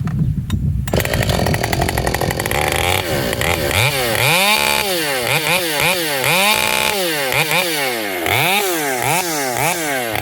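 Ported Husqvarna 565 two-stroke chainsaw with an open muffler mod (a plain hole, no deflector) running, with wind rumble on the microphone at the start. From about four seconds in it is revved up and down over and over in quick throttle blips.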